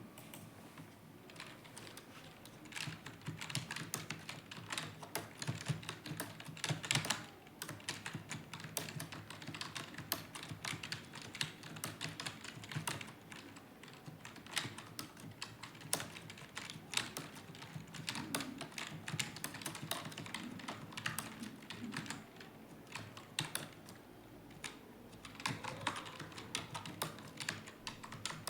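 Fast, continuous typing on a computer keyboard: a dense stream of key clicks.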